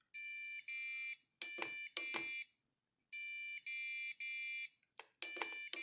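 Arduino-driven buzzer of a Simon game beeping short, buzzy tones at several different pitches, each about half a second, in groups of two and three with short gaps, as the game's sequence is played and repeated. Some beeps come with the light click of a push button being pressed.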